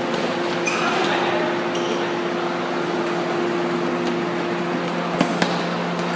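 Futsal play on an indoor court over a steady hum: a few brief sneaker squeaks on the floor about a second in, and two sharp knocks close together a little after five seconds, the ball being struck.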